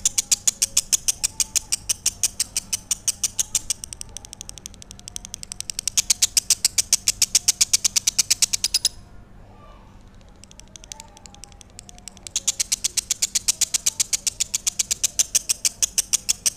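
Lovebird singing a long run of fast, shrill, evenly spaced chirps, about seven a second; it breaks off for about three seconds in the middle and then starts again.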